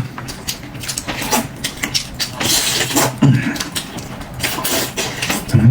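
Noisy eating up close: irregular chewing, smacking and slurping clicks, with a couple of low mouth noises about three seconds in and near the end.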